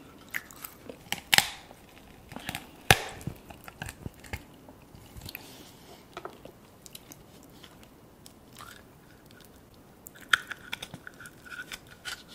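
Cooked lobster claw shells cracked and pulled apart by hand, with two sharp cracks in the first three seconds and scattered smaller clicks, alongside close-miked chewing of the lobster meat.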